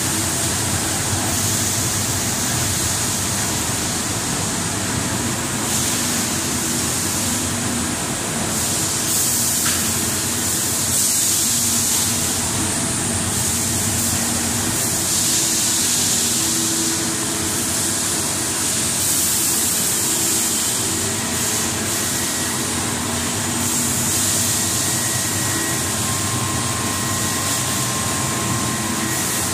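Rubber profile extrusion and vulcanization line running steadily: a continuous hiss over a low machine hum, with a faint higher tone near the end.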